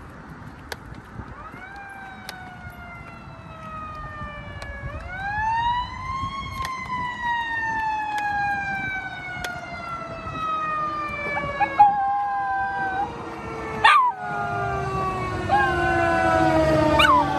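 Fire truck siren wailing: it rises twice, then slowly falls for about ten seconds. From about twelve seconds in, a miniature schnauzer howls along in short held notes. A few sharp clicks come near the end.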